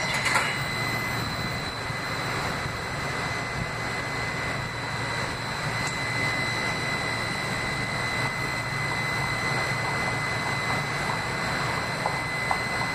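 Kinki Sharyo light rail vehicle standing at a stop with its doors open: a steady whir of its onboard equipment with a constant high-pitched whine, and a small knock right at the start.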